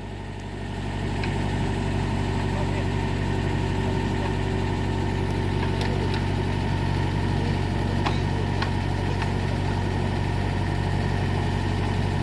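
Mitsubishi MS030 excavator's diesel engine running steadily, getting louder about a second in and then holding an even pitch, with a few faint clicks.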